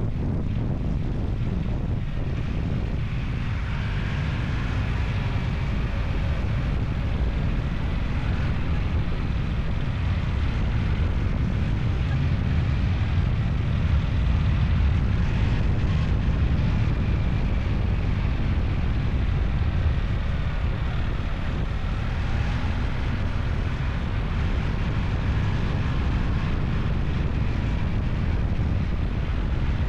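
Steady engine drone of a moving vehicle with heavy low wind rumble on the microphone, the engine pitch drifting slightly up and down.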